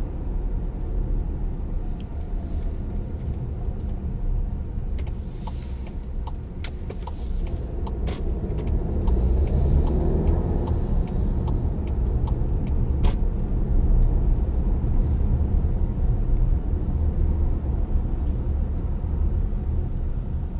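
Car cabin noise while driving: a steady low rumble of engine and tyres on the road, with scattered small clicks and two brief rushing swells, about five and ten seconds in.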